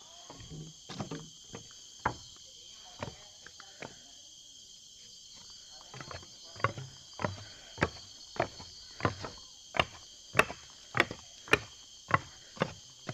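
Footsteps walking on a forest trail. A few scattered steps come first, then from about six seconds in an even pace of nearly two steps a second. Behind them runs a steady, high-pitched insect chorus.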